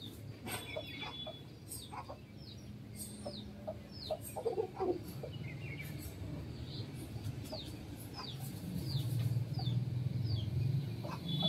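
Chickens clucking softly while dust bathing in loose dirt, with scratchy scuffs of soil. Small birds give short falling chirps again and again in the background, and a low rumble rises in the last few seconds.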